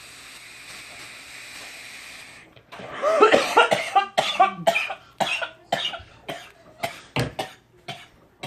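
A long breathy hiss of a drawn breath for about two and a half seconds, then a man's coughing fit: a fast run of a dozen or so harsh coughs, loud at first and tailing off, set off by a big hit of vape vapour.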